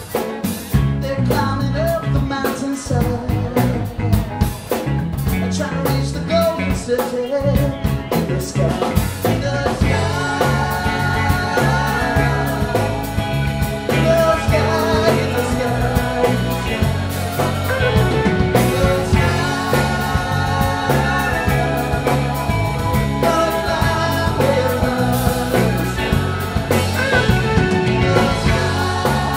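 Rock band playing live: two electric guitars, bass guitar and drum kit, with a steady beat.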